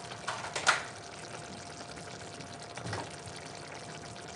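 Pan of chili simmering on the stove: a steady hiss with a few bubbling pops near the start and again about three seconds in.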